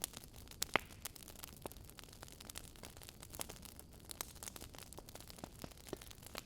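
Burning firewood crackling: irregular sharp pops and snaps over a faint low hiss, with one of the louder snaps about 0.7 s in.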